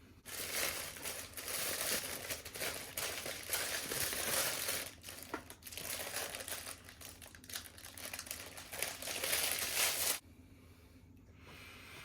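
Food packaging crumpled and crinkled by hand, in uneven rustling handfuls for about ten seconds, stopping abruptly.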